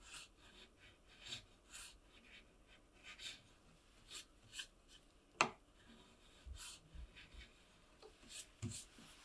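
Small metal block plane taking short passes across the end grain of a board to trim it to length, a faint scraping hiss with each of about a dozen strokes. One sharp click about halfway through.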